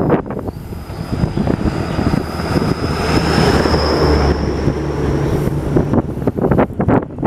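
Wind buffeting the microphone, with a steady low engine hum under it and a thin high whine through the middle seconds.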